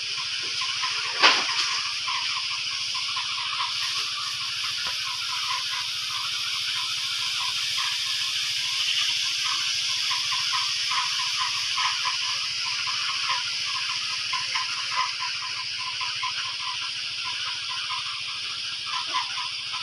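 Hose sprayer misting antibacterial disinfectant over a chicken-house floor: a steady hiss with a faint low hum underneath. A sharp, brief sound stands out about a second in.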